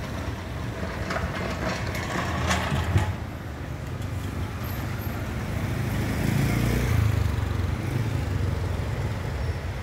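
Street traffic: motor scooters and cars running and passing, a steady low rumble that swells about six seconds in, with a few sharp clicks and one louder knock about three seconds in.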